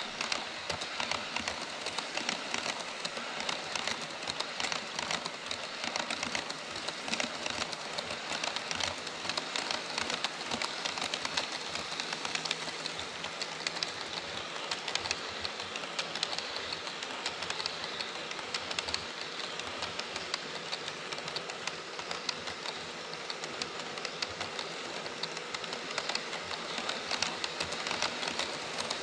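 HO scale model freight train, Taki 43000 tank wagons and then Koki 104 container wagons, rolling steadily along KATO Unitrack: a continuous rush of metal wheels on the rails, thick with fast fine clicking.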